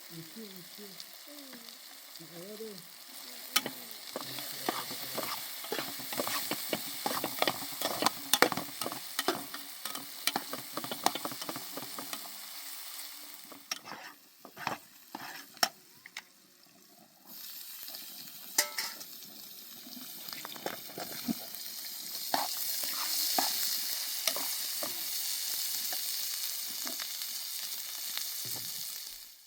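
Food sizzling in a pan while a utensil stirs and scrapes against it, with many quick clicks. The sizzle drops away for a few seconds midway, then comes back steadily and cuts off abruptly at the end.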